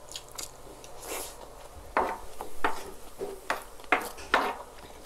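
A metal spoon scraping and scooping rice across a wooden cutting board in a series of short, irregular scrapes, most of them in the second half.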